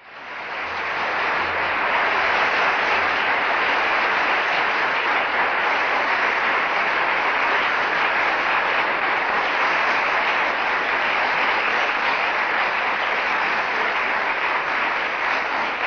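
A large auditorium audience applauding. The clapping builds over the first two seconds, then holds steady.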